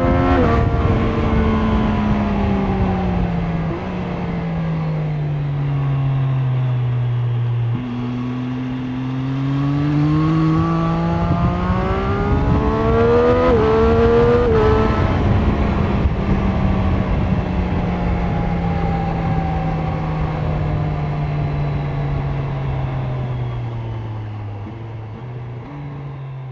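Triumph Street Triple 765 RS inline three-cylinder engine on its stock exhaust, under way: revs fall off for several seconds, climb steadily again toward the middle, then drop and sink slowly, with a few small steps near the end. The sound fades toward the end.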